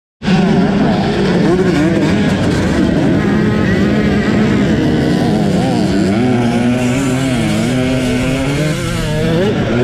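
Two-stroke Husqvarna TE300i enduro motorcycle engine being ridden off-road, the throttle opened and closed again and again so the engine note keeps rising and falling.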